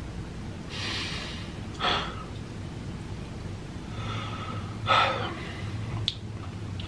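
A man breathing heavily through his mouth, short of breath, with three audible gasping breaths: a long one about a second in, a sharper one near two seconds and the loudest about five seconds in.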